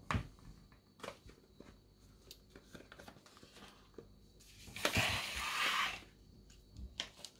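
Small cosmetic bottles and boxes tapping and clicking as they are set down and shifted on a wooden desk. About two-thirds of the way through comes roughly a second of plastic crinkling as the plastic pouch of Epsom salts is picked up and moved.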